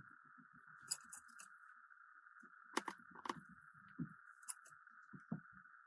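Faint, scattered small clicks and taps of a precision screwdriver working the screws of a smartphone housing during reassembly, over a faint steady hiss.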